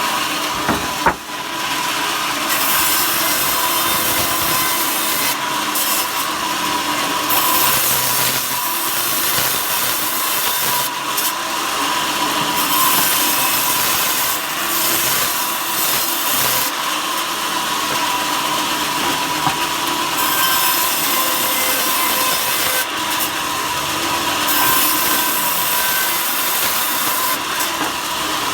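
Power saw cutting wood, running continuously with a steady whine, with a brief dip about a second in.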